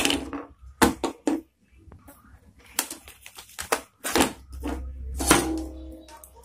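Handling noise on a wooden workbench: a multimeter, a small circuit board, a lamp holder and a soldering iron picked up and set down, giving a string of sharp clicks and knocks at irregular intervals.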